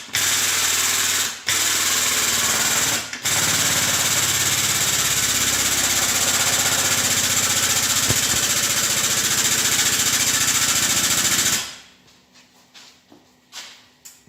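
A handheld power tool runs in long bursts with a fast rattling, hammering beat. It pauses briefly twice and then stops near the end, after which there are a few faint knocks.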